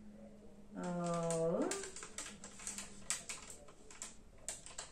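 Paper rustling and crinkling in the hands as a receipt is unfolded and searched, a run of quick irregular crackles from about two seconds in. About a second in, a woman gives a short hummed 'mm' whose pitch dips and then rises.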